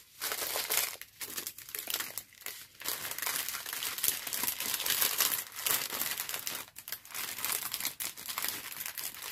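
Clear plastic packaging crinkling in irregular crackles as small bags of diamond painting drills are handled and pulled out of their cellophane sleeve.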